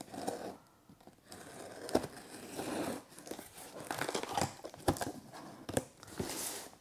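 Small knife blade slitting the clear packing tape on a cardboard box: crinkling, scraping of tape and cardboard, with a few sharp clicks.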